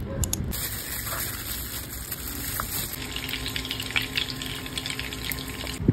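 Salmon fillets frying in oil in a pan: a steady sizzle with dense crackling pops from about three seconds in, after a plainer hiss.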